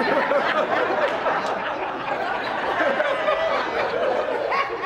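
A large audience laughing, many voices at once.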